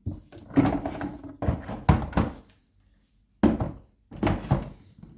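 Power tools being set down into a hard plastic toolbox: a run of thuds and knocks for about two and a half seconds, a short pause, then a few more thumps.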